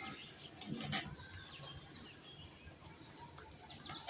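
Faint bird song: a quick run of short high chirps that steps down in pitch through the second half, over a few faint taps early on.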